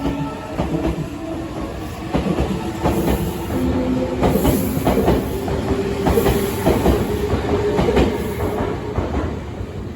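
Meitetsu electric train running through the station, its wheels clacking rapidly over rail joints, with a faint steady hum underneath.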